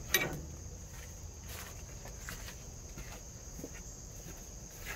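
Insects chirring steadily in the background with one unbroken high note, and a sharp knock right at the start followed by a few faint knocks.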